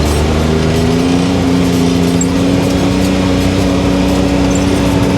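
Can-Am Maverick X3 DS Turbo side-by-side's turbocharged three-cylinder engine running while under way, its pitch climbing a little in the first second and then holding steady.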